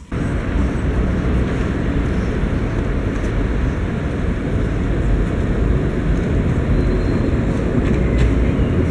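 Steady city street noise: a continuous low rumble of traffic, heaviest in the deep bass, with no distinct passing events.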